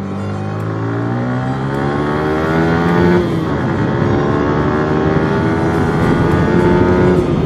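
Yamaha R15 motorcycle's single-cylinder engine accelerating hard through the gears: the pitch climbs steadily, drops at an upshift about three seconds in, then climbs again to another shift near the end.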